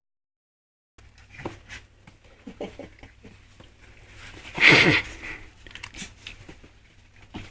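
Mini pit bull puppies playing: scattered light taps and patter of paws and bodies, with one short, louder cry about halfway through. The sound cuts in after about a second of silence.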